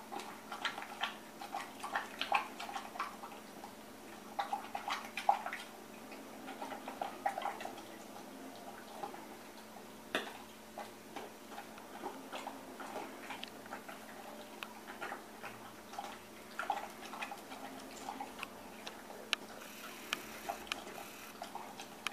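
A dog eating moist homemade food from a stainless steel bowl: a run of quick, irregular clicks and smacks of chewing and licking, busiest in the first several seconds.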